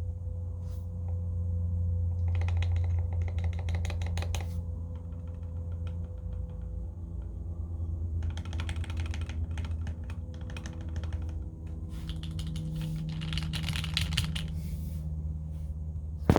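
Typing on a mechanical keyboard with Gateron Yellow linear switches lubed with Krytox 206, in an aluminium 65% case: keystrokes come in quick runs with short lulls between them. A steady low hum runs underneath, and a single sharper knock comes at the very end.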